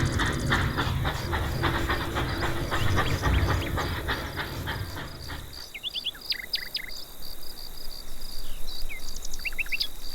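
A small machine running with a rhythmic clatter and low rumble, stopping abruptly about five and a half seconds in. Birds chirp briefly after it stops, over a steady high-pitched tone.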